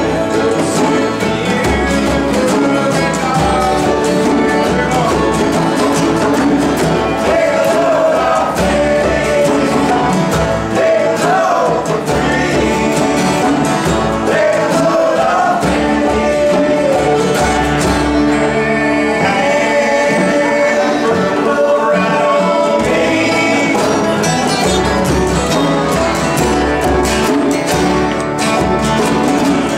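Acoustic jam music: several acoustic guitars strummed and picked together, with a slide played on a lap-held resonator guitar gliding between notes over a hand drum's beat.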